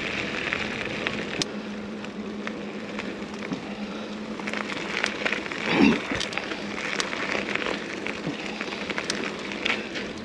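Mountain bike rolling along a dirt trail: steady crackling tyre noise with scattered clicks and rattles, and a louder bump about six seconds in.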